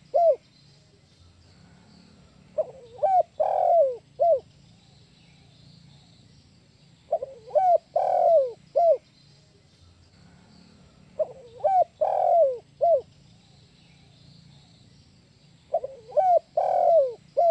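Spotted dove (tekukur) cooing its 'kuk 1' call, repeated four times about every four and a half seconds. Each phrase is two short coos, a longer falling coo, then a single short closing note.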